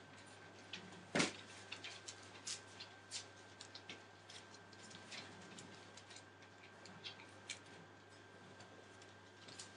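Irregular light clicks and rustles from Entlebucher Mountain Dog puppies moving about and playing on newspaper and toys, with one sharper knock about a second in. A faint steady high tone runs underneath.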